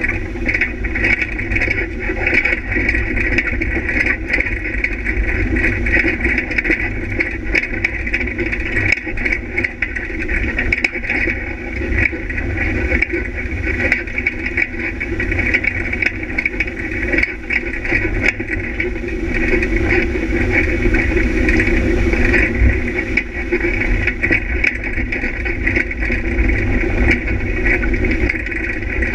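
Off-road vehicle's engine running steadily under way along a bumpy dirt track, with rattling throughout.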